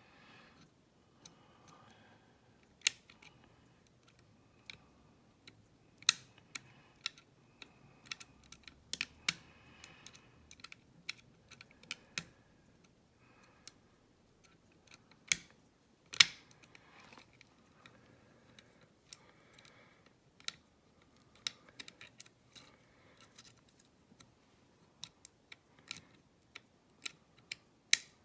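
Irregular small metallic clicks and faint scraping of a pick wire and bent-nail tension tool nudging the levers inside a Chubb 5-lever mortice lock, with one louder click past the middle.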